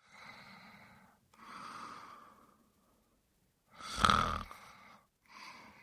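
A man snoring: a run of slow breaths, with one much louder snore about four seconds in and softer breaths either side.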